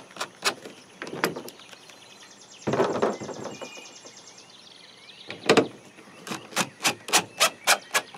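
Cordless impact driver running screws part way into a plastic kayak hatch ring, its hammer clicking in steady runs of about three clicks a second: one run at the start, and another from about halfway in. A brief louder rustling noise comes about three seconds in.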